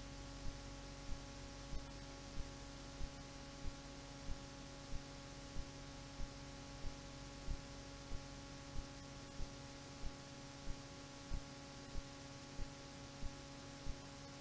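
A steady electrical hum with a sharp click repeating evenly about every two-thirds of a second; no orchestral music is playing.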